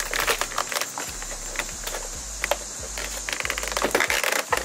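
Irregular plastic clicks and knocks as an aftermarket LED fog light bezel is pushed and worked into a 2013 Ford Fusion's front bumper, its clip tabs being lined up to snap in.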